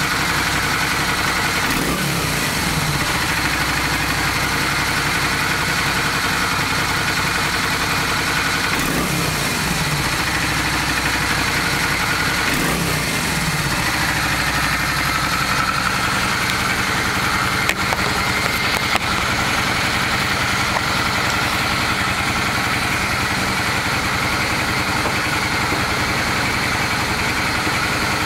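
Honda Steed 400 V-twin engine idling, with the throttle blipped three times so the revs rise and fall back. The engine has a knock that the owner places low in the rear (left) cylinder.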